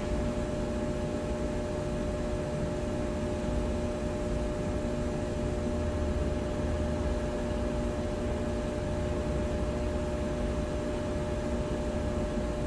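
Room tone of a large machine shop: a steady electrical transformer buzz with several held tones over a low rumble of distant traffic, which swells slightly about halfway through.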